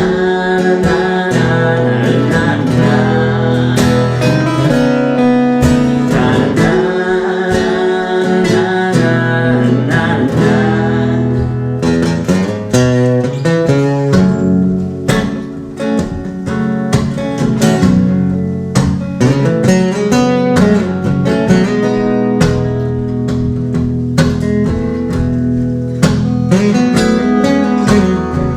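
Live acoustic guitar music, an instrumental break in a pop-rock song: strummed chords under a picked melody, with the strumming growing sharper and busier from about halfway through.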